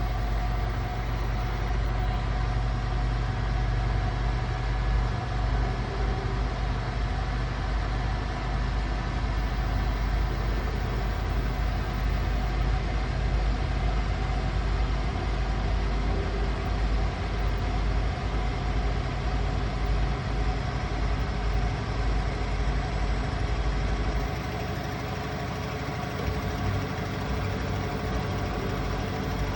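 Asko washing machine in its final spin, the drum turning at high speed with a steady hum and several held tones over a low rumble. The low rumble eases for a couple of seconds about three quarters of the way through.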